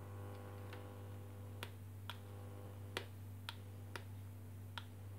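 Faint steady buzz with a row of overtones from a signal-tracer probe's amplifier speaker, picking up the ZVS soldering gun's driver oscillating without load. About half a dozen light clicks and taps come through from the probe and gun being handled and the gain being adjusted.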